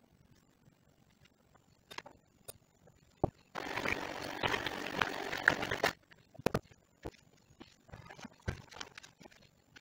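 Electric hand mixer running in a bowl of blueberry filling for about two and a half seconds in the middle, starting and stopping abruptly, with scattered knocks and taps before and after it.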